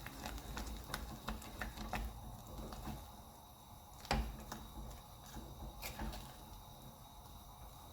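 A utensil stirring mashed potato in a saucepan, knocking and scraping against the pan in irregular clicks, with one louder knock about four seconds in.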